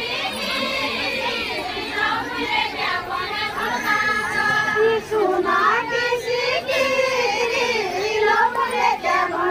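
A group of women singing a Deuda folk song together, with held notes in unison, over the chatter of a large crowd.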